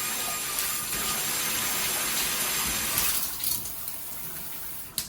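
Water spraying from a rain shower head. About three seconds in, the spray noise changes and drops to a quieter hiss, and there is a single sharp click near the end.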